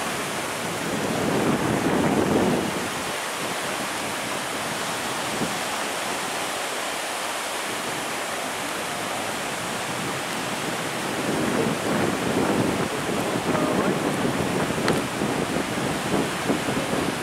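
Steady wash of sea surf breaking on a sandy beach, with wind buffeting the microphone in irregular gusts, strongest about two seconds in and again through the last six seconds.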